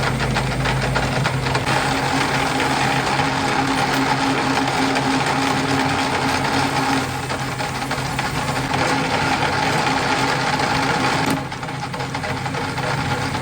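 Metal lathe running steadily with a low motor hum under a busy noise, which changes abruptly twice.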